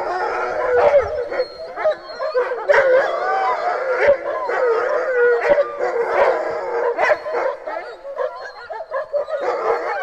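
A pack of sled dogs howling, yipping and barking together, many voices overlapping and wavering in pitch, with short sharp barks scattered through the chorus.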